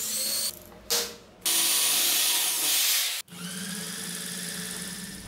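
A small hand-held electric drill whining in short runs, boring through popsicle sticks. About three seconds in this gives way to a steadier, quieter hum of small plastic DC gearmotors running.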